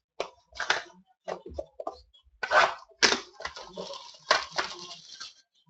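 Packaging crinkling and tearing in several short bursts, then a longer crinkly stretch near the end, as a sealed trading-card box is unwrapped and opened.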